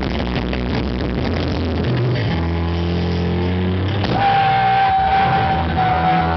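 Live rock band playing, recorded with very rough, distorted sound: a dense wash of drums and guitar, then sustained low bass notes and, about four seconds in, a long held high note.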